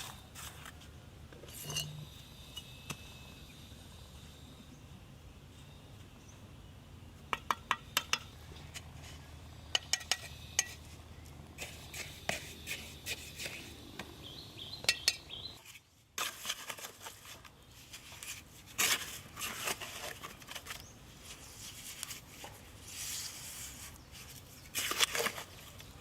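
Intermittent clinks and knocks of hard objects being handled, with a brief silent break partway through and busier clatter afterwards.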